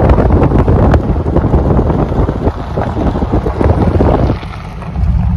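Wind buffeting the microphone through the open window of a moving pickup truck, over the low rumble of the truck driving. The wind noise eases briefly a little after four seconds in.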